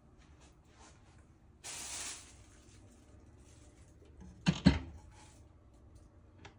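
Handling noises: a short rustle about two seconds in, then two sharp clicks close together as a clear glass cabinet door is pulled open.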